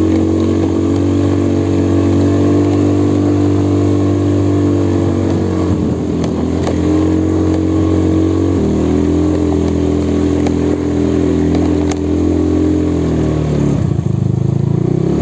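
Motorcycle engine running under steady throttle. Its pitch drops and picks up again about six and nine seconds in, and falls away near the end.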